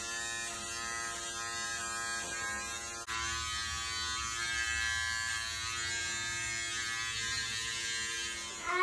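Electric hair trimmer buzzing steadily as it cuts a child's hair.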